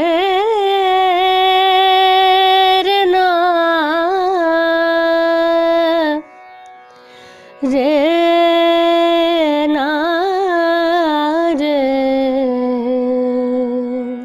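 A female voice singing a wordless alaap in Hindustani classical style: two long held phrases with small ornaments, each settling lower in pitch, with a break about six seconds in. A faint tanpura drone carries on under the voice and through the break.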